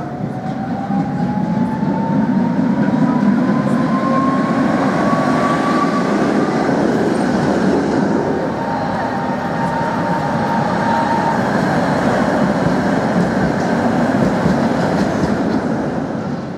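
Tram running on street track, its wheels rumbling on the rails under a motor whine that rises in pitch over the first six seconds as it accelerates. A second, steadier whine follows, and the sound fades out near the end.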